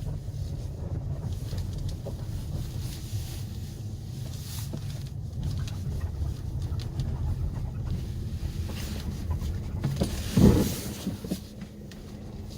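Steady low rumble of a vehicle, with one loud brief knock or creak about ten and a half seconds in.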